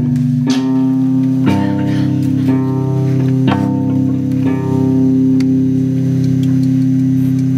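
Live band music led by an electric guitar, a chord struck about once a second and left ringing over a steady low note.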